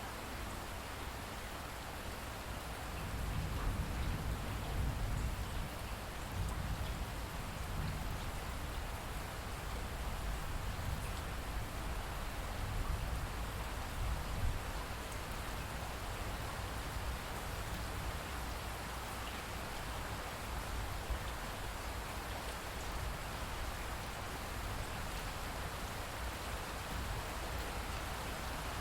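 Steady heavy rain falling and pattering on surfaces. A low rumble swells under it about three seconds in and eases back after the middle.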